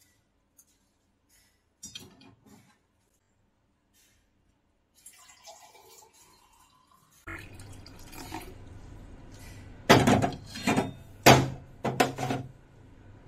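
A drink poured from a small steel saucepan into a glass, trickling about halfway through. Near the end there are several loud sharp clinks and knocks of kitchen utensils.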